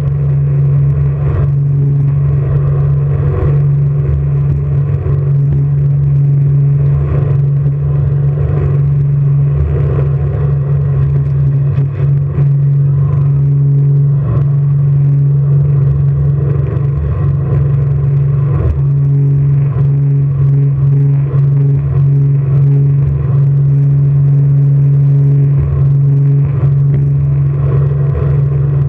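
Jet boat's engine running hard and steady at speed: a constant low drone with a rushing, rumbling noise over it.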